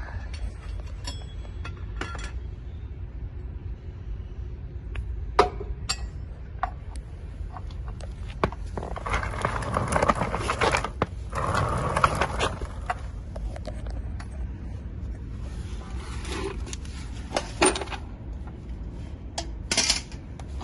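Metal parts and tools clinking and scraping as a lawn mower's shifter linkage is being fitted: scattered sharp metallic clicks, with a longer stretch of scraping about nine to twelve seconds in, over a steady low hum.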